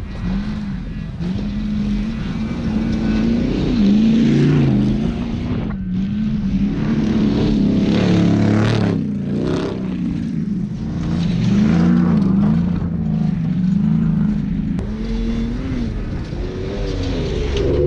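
Off-road race vehicle's engine running hard, its pitch rising and falling with the throttle.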